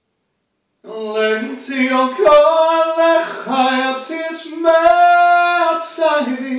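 A man singing alone without accompaniment, a cappella, holding a few long notes and stepping between pitches; the voice comes in about a second in, after silence.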